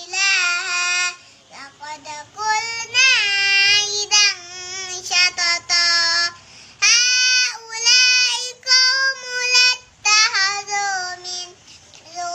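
A young child's high voice chanting Qur'anic recitation in a melodious tune, in long held phrases with short pauses for breath. The pitch steps up into a higher phrase about seven seconds in.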